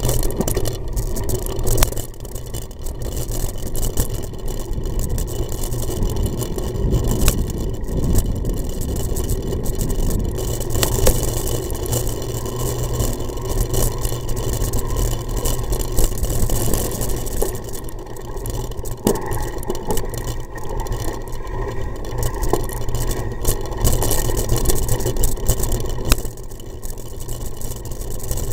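Wind rumbling on the microphone of a bike-mounted camera, with the crunch and rattle of a mountain bike rolling over a gravel and dirt track and many small knocks from the bumps.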